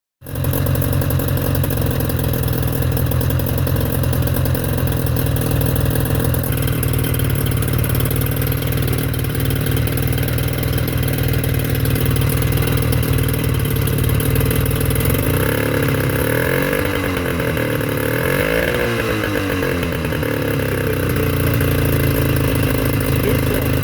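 1992 Mercury 20 HP two-stroke outboard motor running steadily out of the water on a garden-hose water supply. Past the middle its pitch rises and falls a few times.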